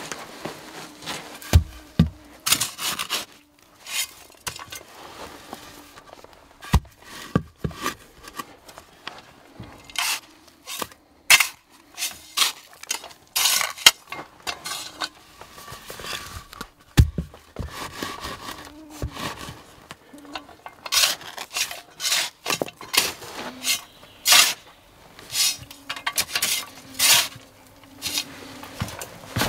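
Hatchet scraping and digging into a sandy earth floor, with loose sand rustling and a few sharp wood-on-wood knocks as a log stump is set upright.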